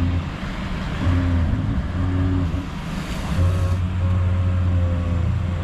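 VW Touareg V10 TDI diesel engine running at low revs as the SUV crawls down a steep, muddy slope: a steady low hum that fades out briefly a few times, with a short rush of hiss about three seconds in.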